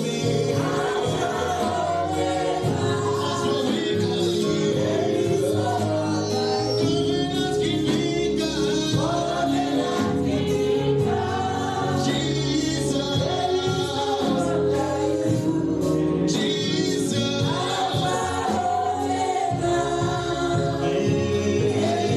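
Gospel worship music with a choir or congregation singing over a band, with steady sustained chords underneath.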